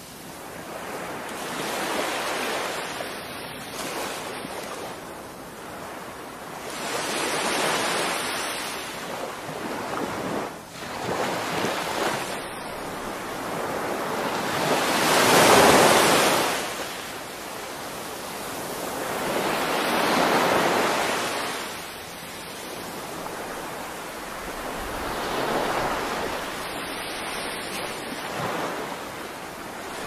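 Small waves breaking and washing up a sandy beach, the surf swelling and fading about every five or six seconds, with the loudest break about halfway through.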